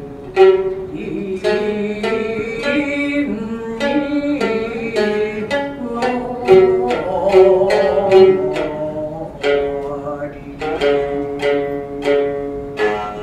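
Gidayū-style thick-necked (futozao) shamisen playing a run of sharp plucked notes, about two a second, each ringing briefly. About halfway through, the chanter holds a drawn-out, wavering sung note.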